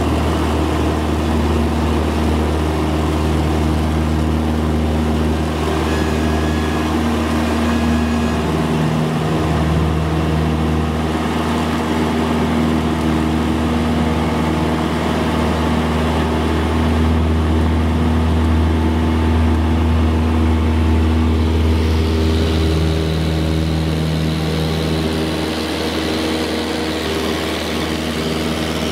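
Cessna 172N's four-cylinder Lycoming engine and propeller running at takeoff power, a loud steady drone heard from inside the cabin, through the takeoff roll and climb-out.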